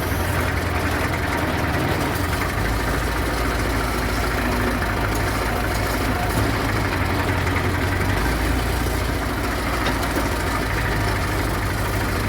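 MTZ-50 tractor's four-cylinder diesel engine running steadily, with a deep low hum.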